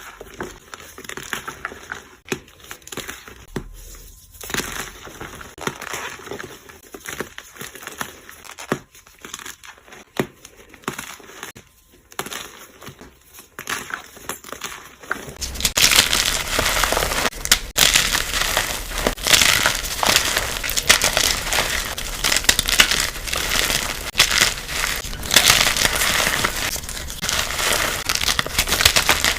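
Pressed powder blocks being crushed and crumbled, with irregular crunches. About halfway through, the sound becomes denser and louder, with quicker, sped-up crunching.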